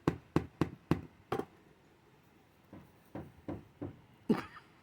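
Knocking on a wall traded back and forth between a pet parrot and a person with a brush: a quick run of about six sharp knocks, then after a pause of about a second a fainter run of about five knocks, and one louder knock or call near the end.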